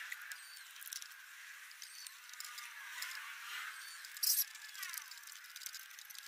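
Light metallic clicks and taps from handling a motorcycle disc brake caliper and its mounting bolts against the fork leg, with a short sharp clink about four seconds in. Birds chirp in the background.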